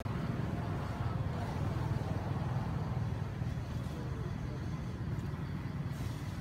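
Steady low background rumble, with a faint short call gliding down in pitch about four seconds in.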